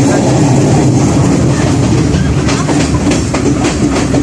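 Passenger train running at speed: a steady rumble of wheels on track, with the sharp clickety-clack of wheels over rail joints coming through more often in the second half.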